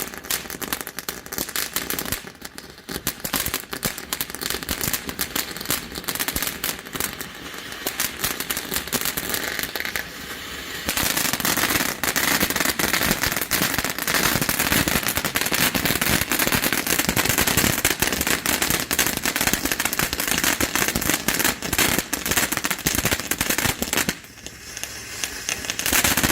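Consumer firework fountain, a Dominator 'Poker Face', burning with a dense spray of crackling sparks. About ten seconds in the crackling turns louder and denser, drops off briefly near the end, then picks up again.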